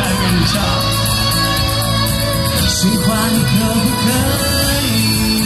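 A male singer sings a Mandarin pop song live into a handheld microphone over an instrumental accompaniment, the sung melody bending and held through the second half.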